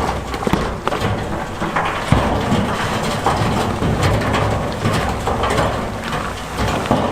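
Heavy diesel earthmoving machinery running under load, with stone crunching, scraping and knocking as rock is pushed or tipped.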